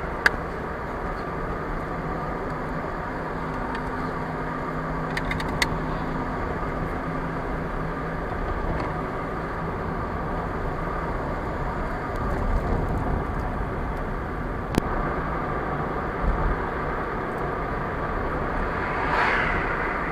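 Steady road and engine noise of a car driving, heard from inside the cabin, with a few sharp clicks about three times and a brief swell of noise near the end.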